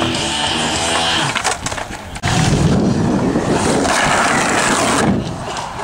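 Skateboard wheels rolling over concrete in a skatepark bowl, a loud steady rush, with a few sharp clacks of the board about a second and a half to two seconds in.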